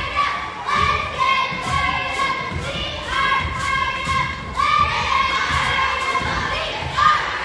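Basketball game sounds on a hardwood gym floor: repeated thuds of the ball and feet, short high squeaks of sneakers, and spectators' voices and shouts echoing in the gym.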